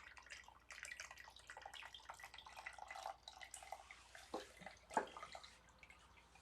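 Faint trickle of water being poured into a small plastic toy container, tapering off after about three seconds, followed by a couple of drips.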